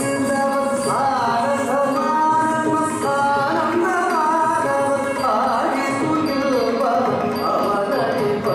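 Carnatic music for a Bharatanatyam kavuthuvam: a gliding melodic line, sung or played, over drum accompaniment, running steadily.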